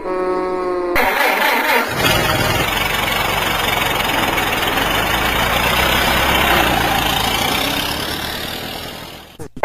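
An engine starts up about a second in and runs steadily with a deep rumble under a loud hiss, fading away near the end.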